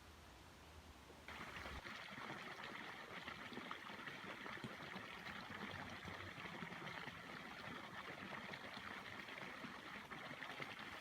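Water running and trickling, a steady splashing wash that starts abruptly about a second in.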